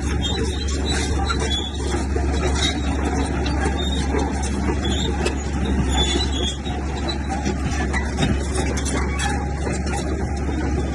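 Heavy earthmoving machinery, a bulldozer or dump trucks, with the diesel engine running steadily under load and a constant deep drone.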